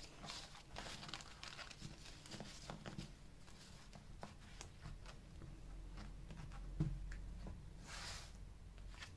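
Tarot cards being swirled face-down on a cloth, gathered, squared into a deck and spread out in a fan: faint sliding and rustling of card on cloth with light taps, one slightly louder tap about seven seconds in and a brief rustle near the end as the cards are fanned.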